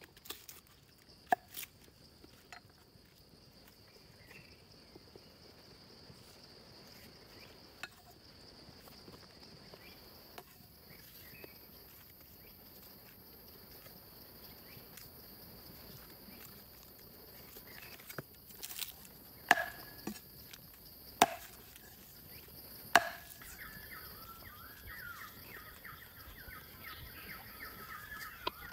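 A steady insect drone, broken by a few sharp knocks of a cleaver on a wooden chopping board in the first couple of seconds. About two-thirds of the way through come three louder knocks with a short ring, and a bird chirps near the end.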